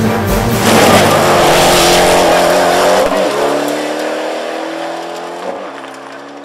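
Rally car engine at high revs with tyre and gravel noise, over music. About three seconds in the car sound cuts off, leaving a held musical chord that fades out.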